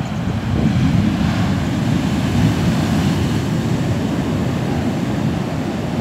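Large sea waves breaking and washing up a sandy beach: a steady rush of surf, with wind rumbling on the microphone.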